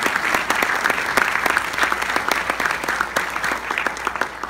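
Audience applauding, many hands clapping steadily, beginning to taper off near the end.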